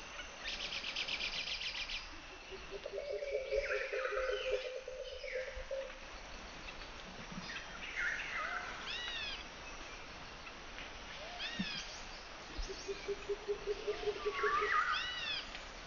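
White-throated laughingthrushes calling. A brief rapid trill comes first, then squeaky chirps over a low rattling call. Later there are repeated short arching notes, and the low rattle returns near the end.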